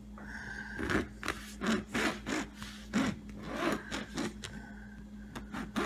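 A blade sawing back and forth through the cover of an American football, in uneven strokes about two a second.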